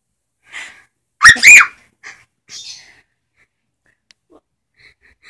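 A pet animal snuffles, then gives two loud, high squeaky calls that rise and fall, followed by two shorter snuffles, as if it feels a sneeze coming that doesn't arrive.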